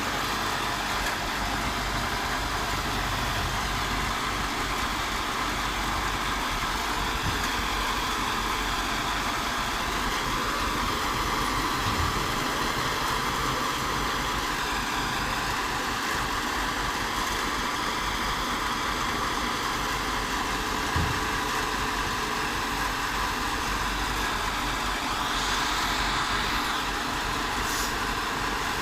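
Kubota DC-105 combine harvester's diesel engine running steadily at idle, with a short knock about two-thirds of the way through.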